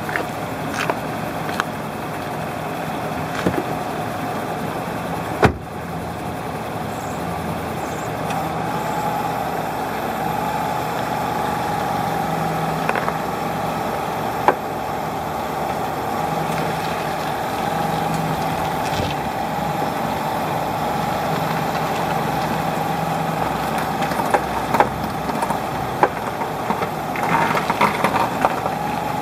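2016 Nissan Rogue running steadily with its front wheel being steered at low speed, with scattered sharp clicks and creaks from the left front wheel area that grow more frequent near the end. The owner calls it an abnormal clicking/creaking noise when turning the wheel.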